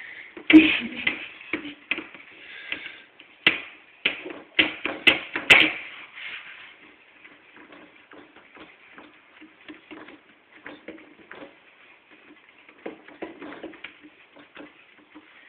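Hands pressing and patting dough into a metal baking tray, with a string of sharp knocks and taps, loudest in the first six seconds, then softer, irregular patting and rustling.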